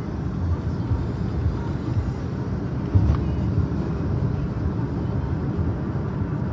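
Steady low rumble of a car's engine and tyres on the road, heard from inside the moving car, with a single brief thump about three seconds in.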